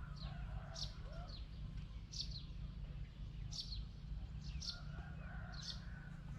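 Small birds chirping: short, sharp, high chirps that fall in pitch, repeated about once a second, over a steady low rumble.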